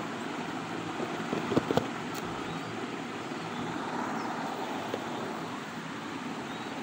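Cardboard smartphone box handled and opened: a few light knocks and taps about one and a half seconds in, over a steady rushing background noise.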